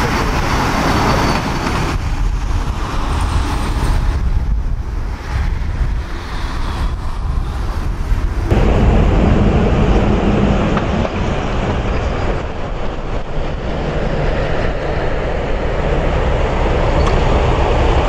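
Boeing 747-8's four GEnx turbofan engines running loud through touchdown and the landing roll, a steady jet rush over a deep rumble. The sound changes abruptly about two seconds in and again past eight seconds.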